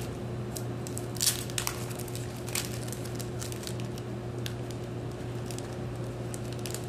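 Plastic sleeves of ABS filament-strand packs rustling and clicking as a hand picks them up and sorts through them, in scattered short bursts over a steady low hum.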